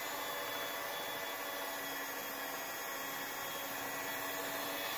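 Electric hand mixer with dough hooks running steadily, kneading a stiff rye-wheat dough: a fairly quiet, even motor whir.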